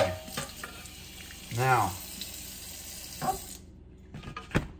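Kitchen faucet running into a stainless-steel sink while a cutting board and fish fillet are rinsed under the stream. A few sharp knocks, the loudest near the end, come from the board and knife against the sink.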